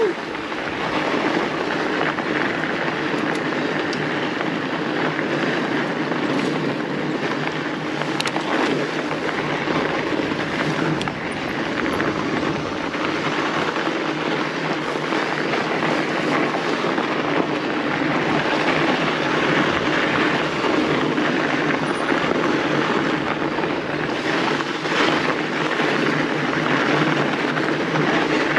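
Continuous rushing noise of a fat bike riding a packed-snow trail: wind over the handlebar camera's microphone mixed with the wide tyres rolling on snow, steady throughout.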